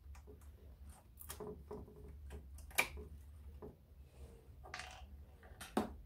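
Hands handling wiring and small parts inside an opened Grundig TK-121 reel-to-reel tape recorder's metal chassis: scattered small clicks and taps, with a sharp click about three seconds in and a short rustling scrape near the end. A low steady hum runs underneath.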